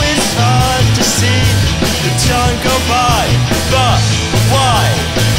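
Rock band playing live: electric guitars and drum kit, with a melody line of notes bending up and down in pitch over a steady low end.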